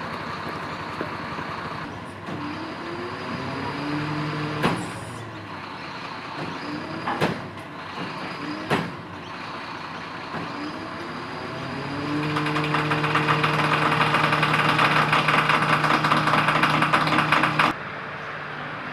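Mobile crane's diesel engine revving up under load during a lift, with three sharp knocks in the middle. The engine rises in pitch a second time and holds at high revs for several seconds before cutting off suddenly.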